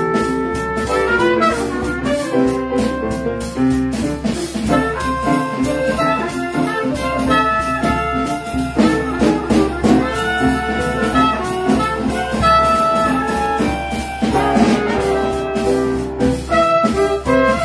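Live small-group jazz: trumpet and clarinet playing melody lines together over piano and a drum kit played with sticks.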